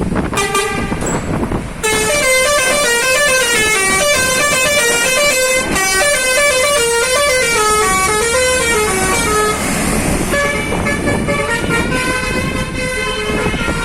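Bus telolet basuri horn playing a quick tune of many short stepped notes for about eight seconds. After a brief pause a few more, weaker horn notes follow.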